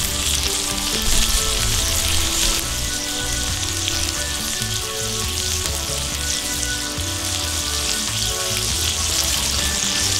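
Beef burger patties sizzling steadily in their own fat on a hot flat-top griddle.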